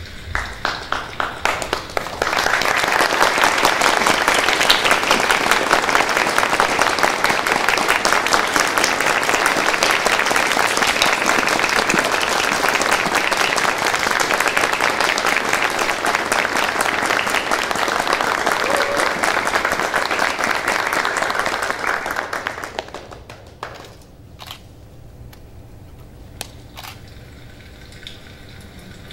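Theatre audience applauding: a few scattered claps, then full, dense applause for about twenty seconds that dies away, followed by a couple of last lone claps.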